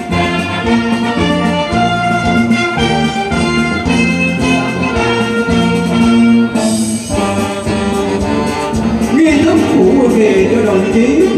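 Brass band music, with trumpets and trombones playing a slow melody in long held notes.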